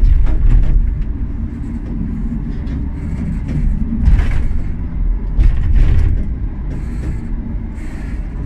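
Small funicular cabin climbing its inclined track: a heavy low rumble throughout, with intermittent clicks and knocks.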